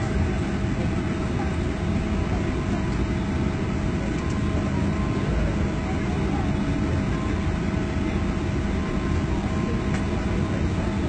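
Steady drone of a parked airliner's engines or auxiliary power unit, with a constant whine that holds the same pitch throughout.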